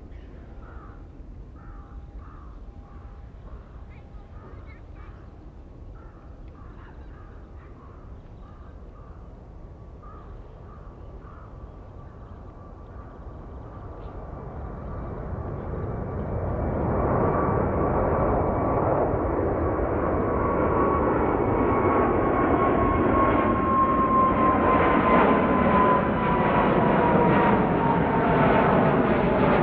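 Boeing 777-300ER's GE90-115B turbofans at takeoff power, faint at first, then building from about halfway in to a loud jet noise as the airliner climbs closer, with a whining fan tone that slowly falls in pitch. Over the quieter first part, a bird calls over and over in short calls.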